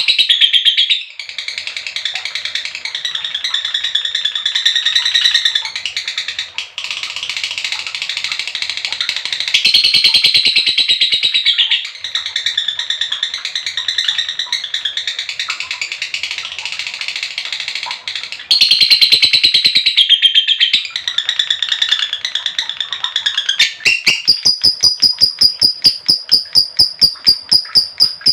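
Female lovebird giving its long chattering 'ngekek' song, a rapid, continuous high trill that swells louder in several stretches. Near the end it settles into a steady, evenly pulsing high trill.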